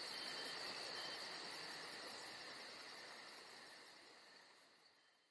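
Insects chirping, a steady high trill with a fast, even pulse, fading out to silence near the end.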